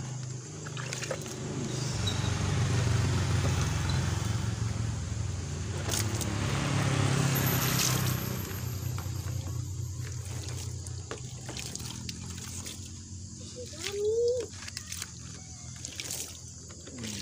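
Water poured from a plastic container over a potted bird's nest fern, splashing and trickling into the pot as the dirt is rinsed off the plant. A motor vehicle's engine is heard at the same time, loudest in the first half.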